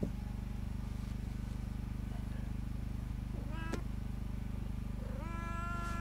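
A domestic cat meowing: a short call about three and a half seconds in, then a long drawn-out meow near the end, over a steady low hum.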